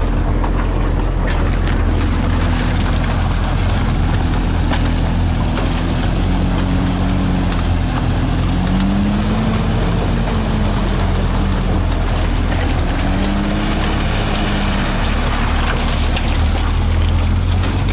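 Off-road SUV engine running and revving up and down as it drives through a shallow river, over a steady low rumble and the wash of water.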